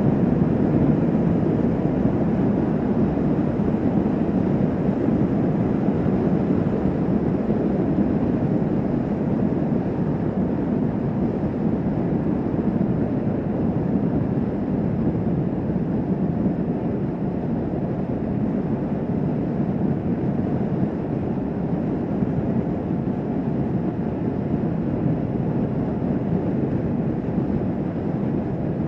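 Kawasaki Vulcan S 650 motorcycle cruising at a steady highway speed: its parallel-twin engine running evenly, blended with steady wind and road rush.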